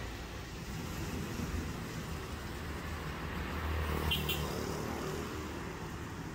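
Motor vehicle engine rumble with street traffic noise, swelling slightly around three to four seconds in, with two quick light clicks just after four seconds.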